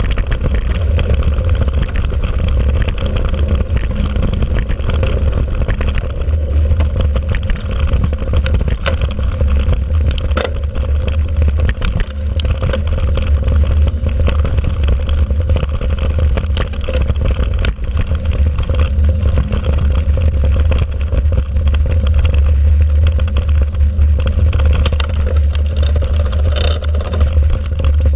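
Wind buffeting the microphone of an action camera mounted on a mountain bike as it rides a dirt trail, a steady low rumble. Over it comes a constant clatter and rattle of the bike and camera mount jolting over bumps.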